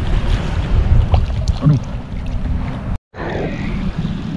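Wind buffeting the microphone in a low, steady rumble, over the splash and lap of shallow seawater. The sound cuts out for a moment about three seconds in.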